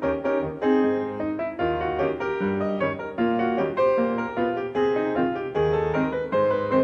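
Background instrumental music, a piano piece playing a steady stream of notes with chords under the melody.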